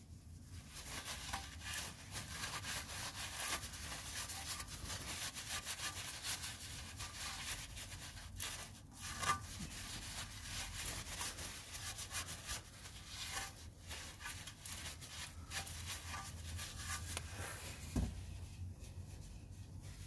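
A paper towel rubbing and scrubbing over the oily sump pan around the drain plug: a continuous scratchy wiping. There is a single dull thump near the end.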